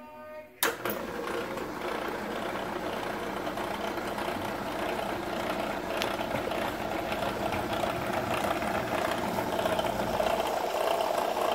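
ACME handsaw vise and filer switched on with a sharp click about half a second in, then running steadily: its electric motor and gearbox drive the file arms, which rock up and down on their pivoting brackets.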